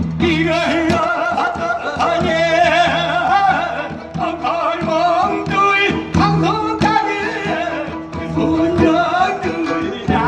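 Korean traditional folk singing: a sorikkun's voice with a strong wavering vibrato on held notes, over a plucked long-necked lute and sharp strikes on a barrel drum.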